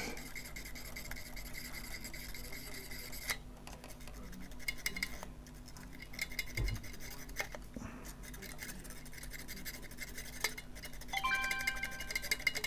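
Fine sandpaper, about 300 grit, rubbing on a corroded metal battery contact: a faint scratching with scattered small clicks, under quiet background music.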